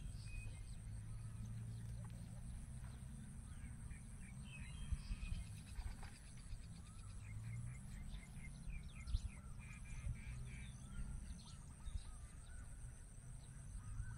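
Open-field ambience: wind rumbling on the microphone, with many short bird chirps and trills scattered throughout and a steady high insect buzz behind them.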